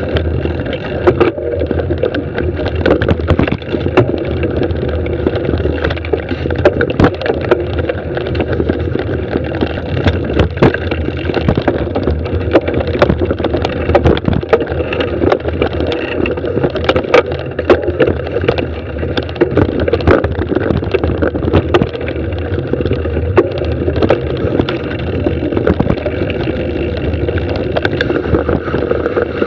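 Mountain bike ridden fast down a dirt singletrack: a steady rumbling noise of tyres on dirt and rushing air at the camera, with frequent sharp clacks and knocks as the bike rattles over bumps.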